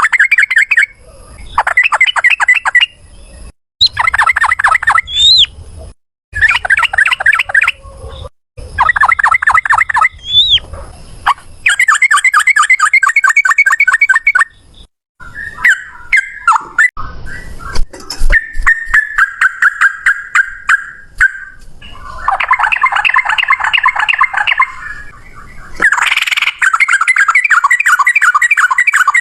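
Yellow-vented bulbul (trucukan) singing long, rapid chattering trills in repeated loud bursts of a second or few each, with short breaks between them and an occasional upward-sliding note.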